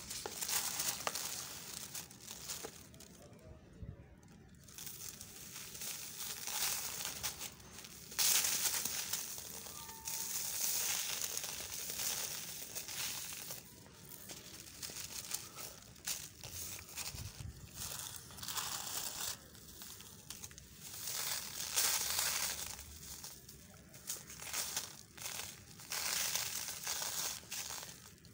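Dry sand-cement mix crumbled between fingers and sifted through them onto a paper sheet: a grainy crunching and hissing trickle that comes and goes in swells, with a short pause about four seconds in.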